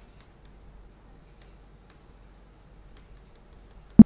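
Computer keyboard keystrokes: faint scattered key clicks, then one much louder, sharp click right at the end.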